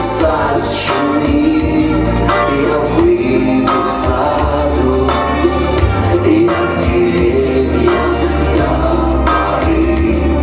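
Live band playing a slow lyrical pop song with singing: guitar and keyboards over a steady drum beat.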